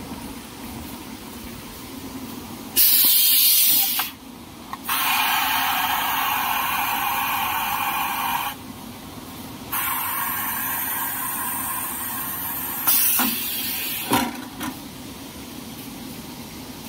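Paper towel folding machine running with a steady hum, broken by loud bursts of compressed-air hissing, several seconds each, that start and stop abruptly. A few sharp clicks come near the end.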